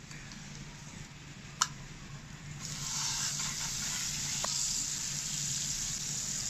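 Margarine going into a hot frying pan: a sharp click about one and a half seconds in, then about two and a half seconds in a steady sizzle starts as the fat heats and melts.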